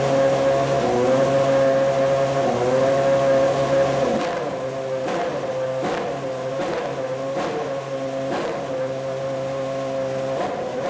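Ferrari Formula One car's engine running at idle with a steady drone. From about four seconds in it drops slightly in level, and a string of short, sharp cracks comes about once a second.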